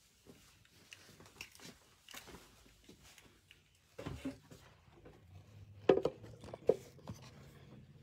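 Handling noise as a phone camera is carried and set in place at a sewing machine: rustling and small clicks, a thump about halfway, and two sharp knocks about six seconds in as it is set down. A low steady hum comes in after the thump.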